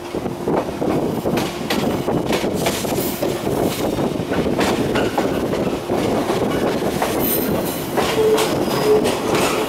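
Electric local train running, heard through an open window: steady track rumble with the wheels clicking over rail joints. A wheel squeal sets in near the end.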